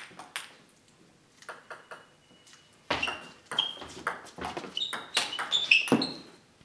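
Table tennis rally: a celluloid ball clicking off bats and the table in quick, irregular strokes. It grows busier and louder from about three seconds in and stops about six seconds in.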